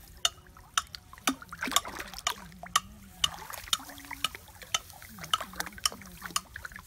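Shallow muddy paddy water splashing and dripping as a dog wades and noses through it: an irregular run of small, sharp splashes and drips.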